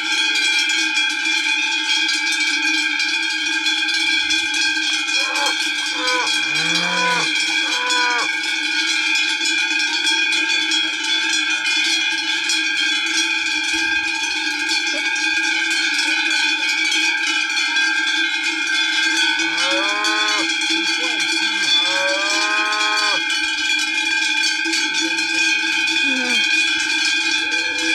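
Many cowbells on a walking herd of cattle, ringing together in a dense, unbroken jangle. Cows moo a few times over it, in two groups: about five to eight seconds in and again around twenty seconds in.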